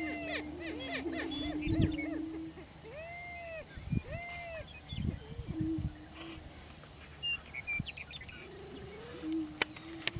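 Male greater prairie chickens displaying on a lek: low, hollow booming notes held for a second or two, overlapping arching whoop-like calls, and a few low thumps.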